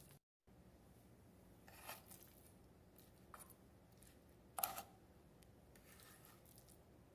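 Faint handling sounds of raw pork chops being turned over by hand on a wooden cutting board: a few short soft slaps and rubs, about two, three and a half, and four and a half seconds in, the last the loudest.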